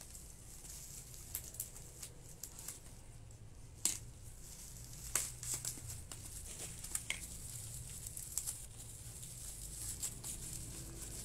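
Plastic packaging being cut and torn open by hand: scattered crinkling and rustling with a few sharper snaps and tears.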